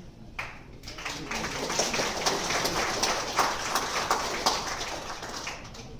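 Audience applauding, the clapping swelling up about a second in and dying away near the end.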